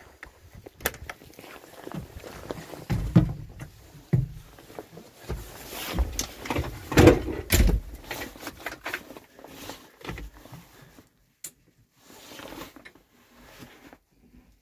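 Handling noise in a Zetor 6245 tractor's cab: the door latch clicks open, then irregular clunks, knocks and rustling as someone climbs in, with the loudest thud about seven seconds in. No engine is running.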